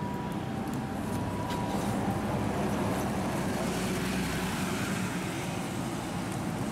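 City bus engine running as the bus pulls away from the stop and drives close past, growing louder in the first few seconds and then easing as it moves off, over a steady traffic hum. A faint thin tone is heard in the first second and a half.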